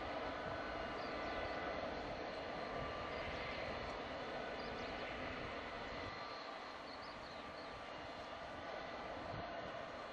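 Boeing 727's Pratt & Whitney JT8D turbofan engines running steadily, a rushing jet noise with a whine of several steady high tones, easing off a little about halfway through.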